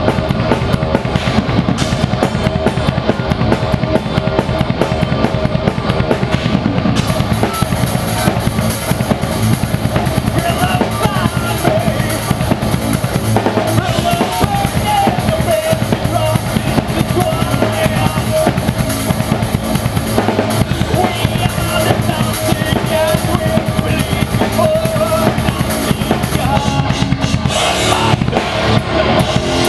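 Live thrash metal band playing, with the drum kit up front: a fast, dense pattern of kick drum and snare under the band. About seven seconds in, the cymbals come in much brighter and louder.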